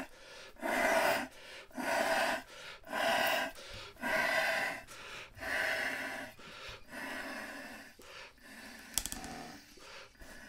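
Repeated breaths blown through the blowpipe into a Flemish bagpipe's bag to fill it: about seven rushing blows, roughly one a second, growing weaker toward the end, with a short click near the end.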